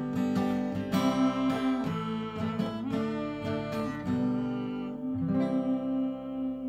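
Acoustic guitar strumming chords to close the song, then one last chord struck about five seconds in and left to ring.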